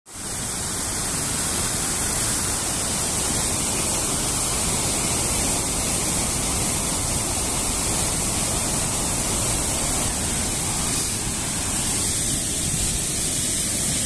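Rushing water of a river or waterfall, a steady even rush with no break.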